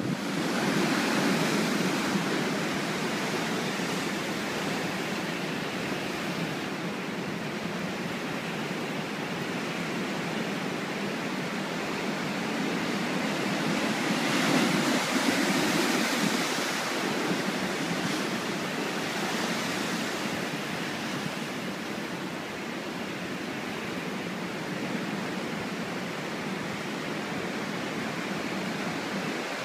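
Ocean waves breaking on rocks and washing over a rock shelf: a continuous rush of surf that swells about a second in and again about halfway through.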